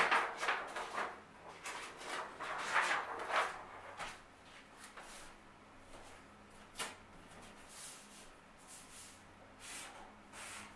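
Black marker drawing lines on a sheet of paper pinned to a wall: a series of short scratchy strokes, busiest in the first few seconds and sparser after. Near the start there is also paper rustling as the sheet is handled.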